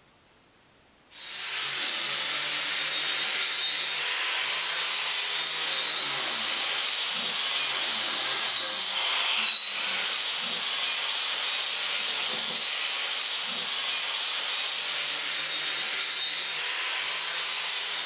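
DeWalt angle grinder with an abrasive disc grinding a steel strip of a pair of hand-made tongs: a steady grinding noise with a high motor whine that sags briefly each time the disc bites. It starts about a second in, after a moment of near silence.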